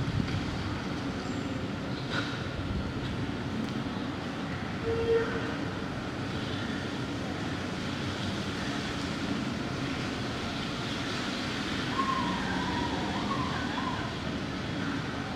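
Busy street ambience: a steady rumble of traffic and crowd, with a click about two seconds in, a short tone about five seconds in and a brief wavering tone about twelve seconds in.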